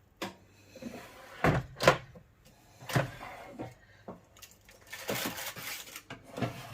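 Ninja Foodi air fryer drawer and basket being handled: a series of separate knocks and clunks, with a short scraping rustle about five seconds in.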